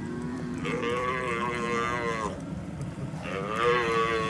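Cattle bawling: two long, wavering calls, the first about half a second in and the second starting about three seconds in.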